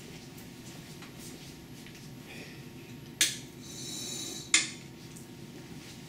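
Two sharp clicks about a second and a half apart, with a brief high whine between them, as the axis-1 brake of a PF400 SCARA robot is released by its push button and the arm is moved by hand.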